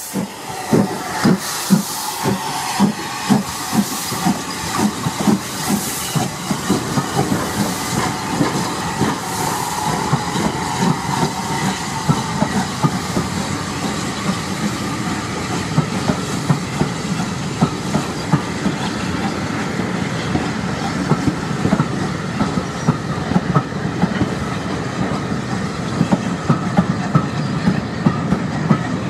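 GWR 1600 class pannier tank steam locomotive pulling away, its exhaust beating regularly with a hiss of steam. From about ten seconds in the hiss fades, and the coaches roll past with the steady clickety-clack of wheels over rail joints.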